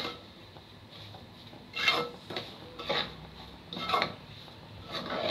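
Metal spoon scraping and stirring across a steel pot as semolina roasts in oil. The scrapes are faint for the first two seconds, then come about once a second.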